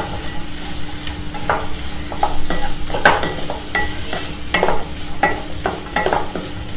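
Chopped onions sizzling in hot oil in a non-stick kadai while a slotted spatula stirs and scrapes them over and over, one or two strokes a second; the onions are being sautéed until soft.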